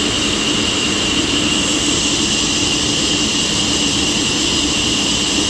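Sawmill saw running with a steady high whine over constant loud machine noise.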